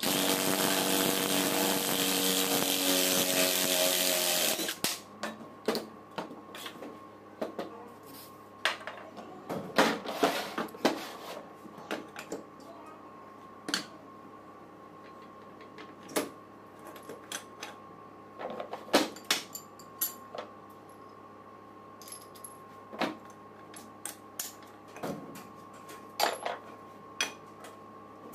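Cordless power driver spinning a socket on the alternator's front nut for about five seconds, its pitch rising briefly near the end before it stops. After that, scattered metal clinks and a few sharp knocks as the alternator housing is handled and set in a steel bench vise.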